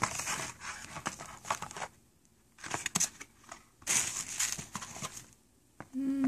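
Packaging of a beauty subscription box being handled, crinkling and rustling in several short bursts with quiet gaps between.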